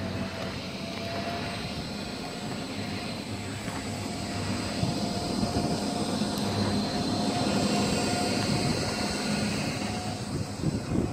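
Golf cart driving along a paved road: a steady motor hum with a faint high whine, over the rush of wind and tyres.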